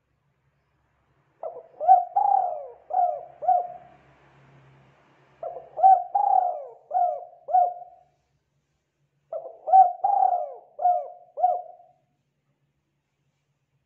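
Spotted dove cooing: three phrases of five or six coos each, with about a second's pause between them.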